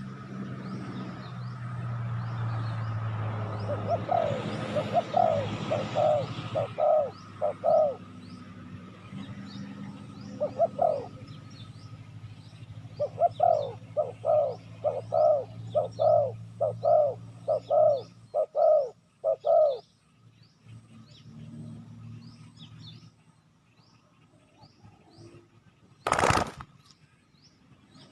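Spotted dove cooing in runs of quick repeated notes: a short run about four seconds in and a longer one of about a dozen notes later, over a low steady hum and faint high chirps. A single sharp click near the end.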